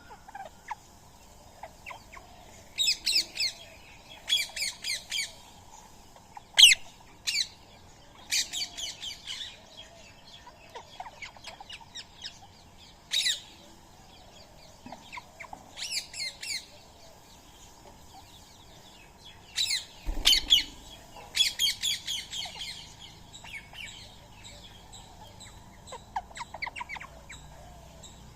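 Rose-ringed (Indian ringneck) parakeets squawking: harsh, high calls in short bursts of quick repeated notes, with single sharp screeches between them and short pauses.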